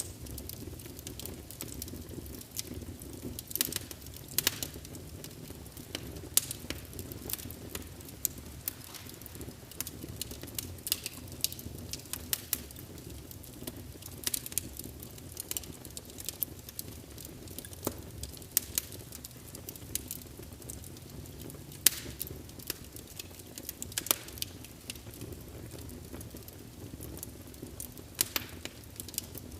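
Birch log fire crackling, with irregular sharp pops over a low steady rumble.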